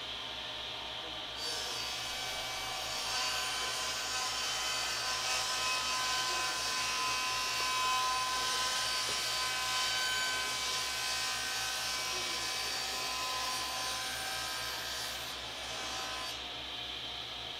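An electric power tool runs on wood for about fifteen seconds, starting a little over a second in and stopping near the end, with a steady hiss and hum.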